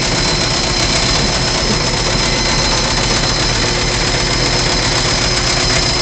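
Commercial front-loading washing machines running: a steady, loud mechanical drone with thin high-pitched tones held throughout.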